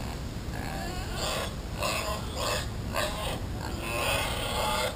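A pig grunting over and over in short grunts, roughly one every half second to second, over a steady low rumble.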